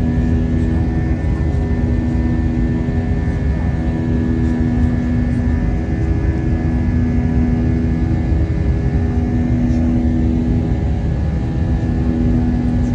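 Airbus A321 jet engines running steadily: a loud, even low rumble with a steady hum and a higher whine held over it.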